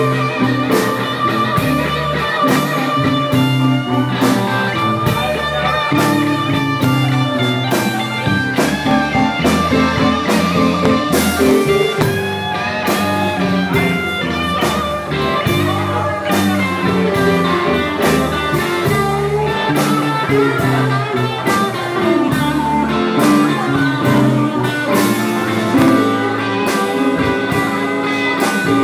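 Live blues band playing a slow, steady beat, with electric guitar to the fore over keyboard, bass and drums.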